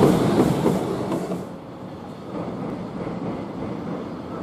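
Empty container flat wagons of a freight train clattering rhythmically over a rail bridge. About a second and a half in, the sound drops away sharply to a much fainter, steady distant train rumble.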